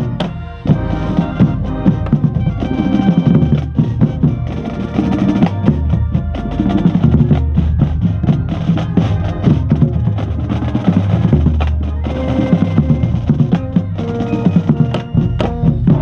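Marching band playing with its drumline: rapid snare and bass drum strokes over held wind and brass notes, the bass drums close by.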